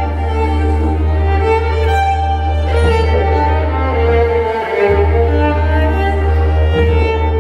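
Didgeridoo playing a steady low drone under a bowed violin melody with sliding notes. The drone breaks off briefly a little under five seconds in, then resumes.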